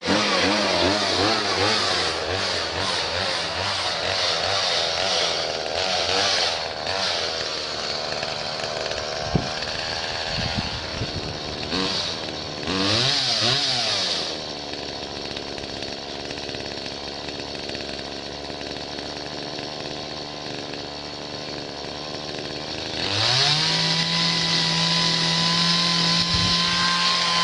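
Petrol chainsaw hung on a rope, its engine speed rising and falling unevenly. About halfway through it drops to a lower steady running. Near the end it climbs and holds at a steady high rev.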